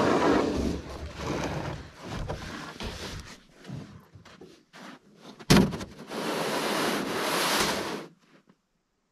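A hard plastic cargo-carrier lid being handled and scraped, with one sharp loud knock about five and a half seconds in. A steady hiss follows for about two seconds, then cuts off.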